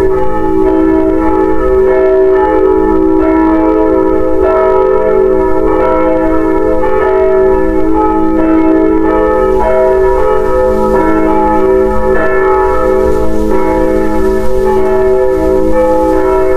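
Bells ringing continuously: many overlapping bell tones struck in quick succession, each left to ring on.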